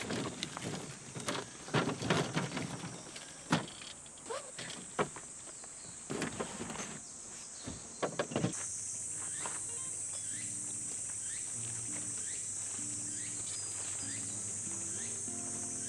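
Camping gear rustling and knocking as it is handled in a car's cargo area, with insects droning. About halfway through this gives way to a steady high insect drone with faint low music notes.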